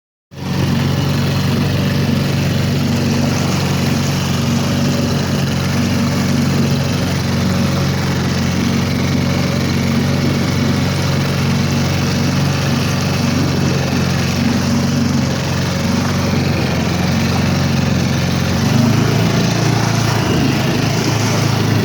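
An engine running steadily, its note shifting about three-quarters of the way through.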